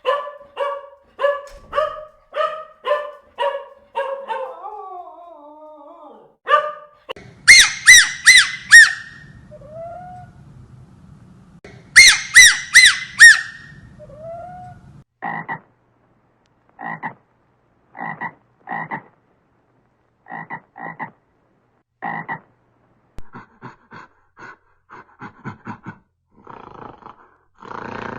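Animal calls in several separate runs: a steady series of about two calls a second, then two loud bursts of rapid, high calls, then shorter calls spaced apart and a quicker run near the end.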